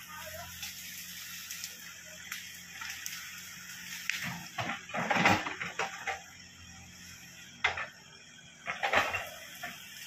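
Earthmoving machinery at work: a bulldozer and a crawler excavator running with a faint steady low engine hum, under irregular clanks and knocks that bunch up about halfway through and again near the end.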